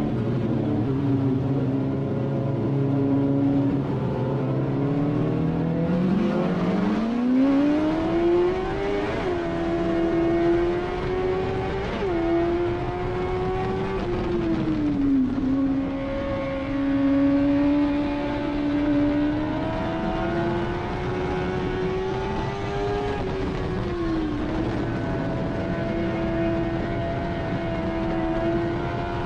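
Dirt-track race car engine heard from inside the cockpit: idling low and steady at first, then revving up sharply about six seconds in as the car pulls away. After that the revs keep rising and falling as the throttle is opened and eased off.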